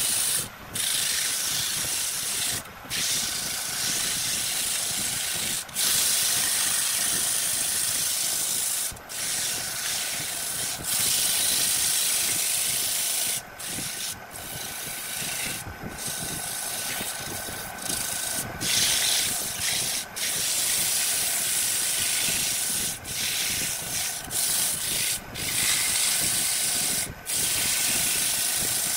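Sandpaper pressed against a wooden vase spinning on a lathe: a steady rushing hiss of abrasive on wood, with a faint steady tone underneath. The hiss breaks off briefly every few seconds.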